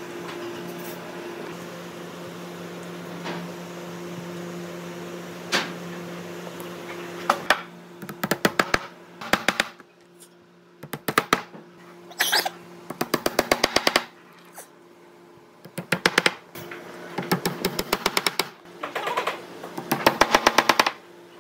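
Workshop tool noise: a steady machine hum with a couple of single clicks, then, from about a third of the way in, repeated bursts of rapid sharp tapping, several strikes a second, each burst lasting about a second.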